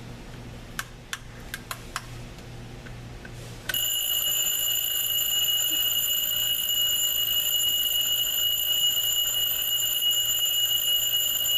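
Battery quartz alarm clock: a few light clicks, then about four seconds in its alarm starts, a steady high-pitched electronic tone that keeps sounding without a break.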